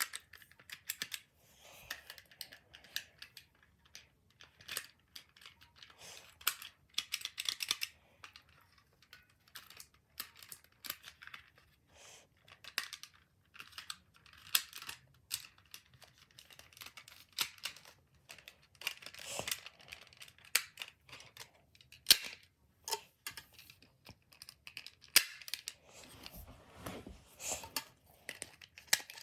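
Irregular small plastic clicks, taps and rattles from handling and fitting together parts of a toy's plastic wing pack, with a few sharper snaps and short runs of quick clicking.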